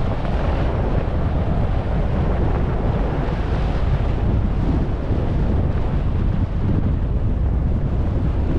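Wind buffeting the GoPro microphone at downhill-skiing speed of about 50 km/h: a steady, heavy rumble, with the hiss of skis running over packed, tracked snow beneath it.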